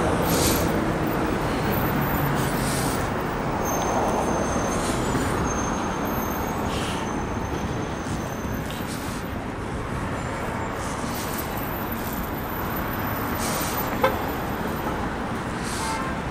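Steady traffic noise from cars passing on a busy multi-lane city street, with a single sharp click about fourteen seconds in.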